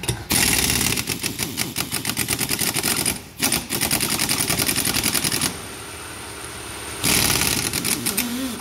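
Pneumatic impact wrench hammering in a fast rattle as it undoes the bolts on a Nissan Patrol rear differential carrier: a long run broken once about three seconds in, then a shorter burst near the end.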